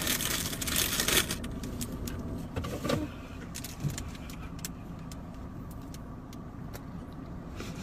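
Plastic food wrapper crinkling for about the first second and a half, then the steady low hum inside a car, with a few faint scattered clicks.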